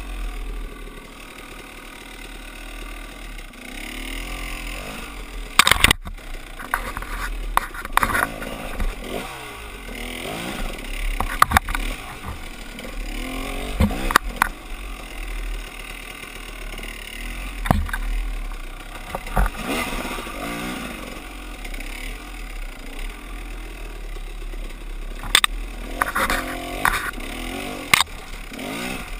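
Dirt bike engine revving up and down as it is ridden over rough single track, with repeated sharp knocks and clatter as the bike bounces over the trail.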